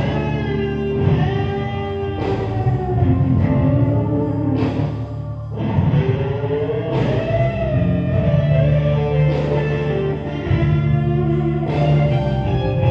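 Music with guitar: a melody that glides and wavers over sustained low bass notes.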